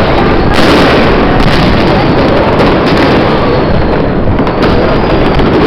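Dense, nonstop fireworks and firecrackers: many loud bangs and crackles overlapping into a continuous din.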